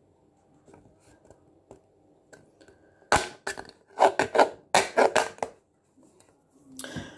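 Craft knife blade piercing and cutting into an empty drinks can. About three seconds in comes a quick run of sharp crackles and crunches as the thin can wall gives way, lasting a couple of seconds, after a few faint taps.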